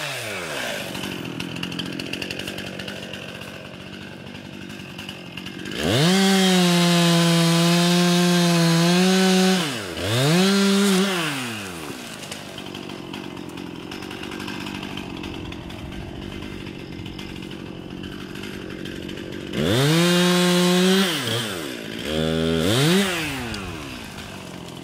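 Two-stroke chainsaw idling, revved up to a steady high pitch for about three and a half seconds, then briefly revved again; the same happens once more near the end, with a shorter full-throttle run and a quick blip after it.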